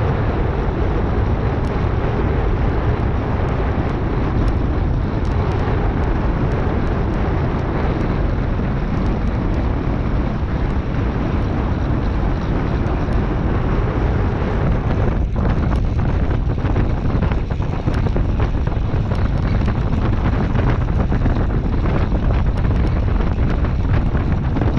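Steady wind rush on the microphone of a handlebar-mounted camera on a track bicycle riding at speed around a velodrome, heaviest in the low range. Faint light ticks come through from about halfway on.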